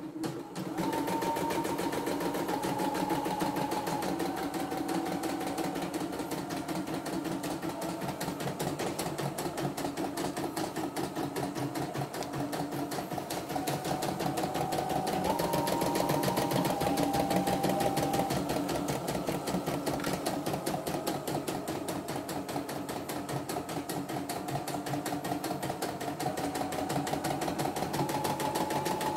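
CNY E960 computerized embroidery machine stitching a design, its needle bar going in a fast, even rhythm over a steady motor hum. Starts about a second in, and the pitch of the hum steps up and down now and then as the stitching speed changes.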